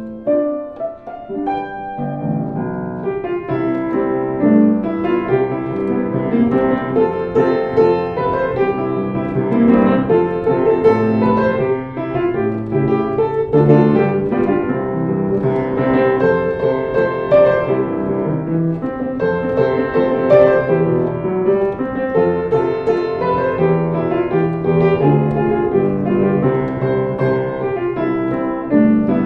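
Piano playing an instrumental passage of chords and melody, sparse for the first two seconds, then fuller and steady.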